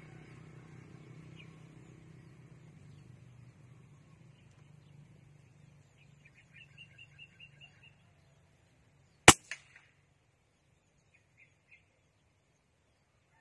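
A single shot from a CZ .22 LR rifle about nine seconds in: one sharp crack followed by a couple of short echoes. Before the shot a bird calls in a quick run of about seven short high notes, and a few more chirps follow after it.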